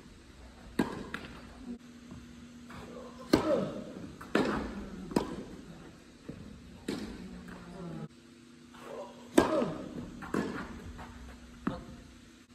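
Tennis balls struck by rackets and bouncing on an indoor hard court during a doubles rally: about eight sharp hits spaced a second or so apart, each ringing briefly in the hall.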